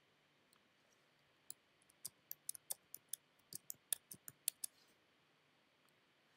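Computer keyboard keys being typed, a quick irregular run of about fifteen sharp clicks from about a second and a half in to nearly five seconds, with one more click at the very end.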